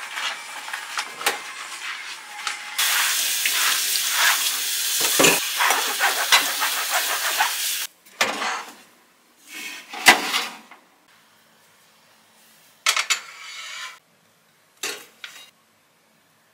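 Dishes being washed by hand at a stainless steel kitchen sink: dishes and cutlery clink, then a running tap rinses glassware for several seconds and is shut off suddenly. After it, a few short clatters and knocks, one of them sharp.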